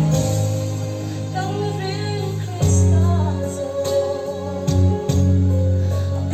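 A woman singing a gospel song into a microphone over amplified instrumental accompaniment, with sustained bass notes that change about two and a half seconds in.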